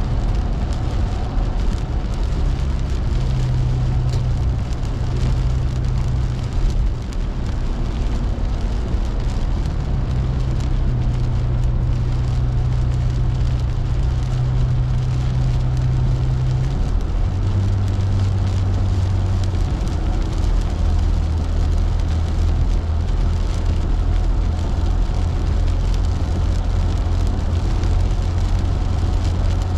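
Car cabin noise on a rain-soaked highway: a steady hiss of tyres on wet pavement and rain on the windshield over a low engine and road drone. The drone steps up and down in pitch a few times.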